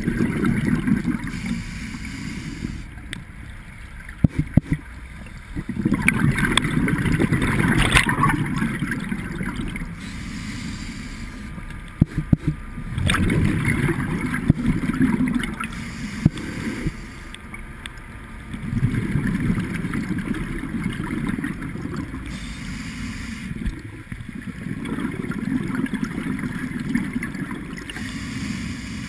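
A diver breathing through a scuba regulator underwater: a bubbling rumble of exhaled air lasting three to four seconds, then a short hiss of inhalation, repeating about every six seconds. A few sharp clicks are heard twice along the way.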